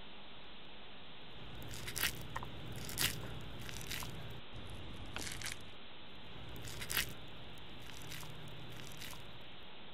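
Hands scooping sticky cooked sushi rice out of a plastic container and squeezing it into a ball: scattered crunching, crackling clicks, the sharpest about two, three and seven seconds in.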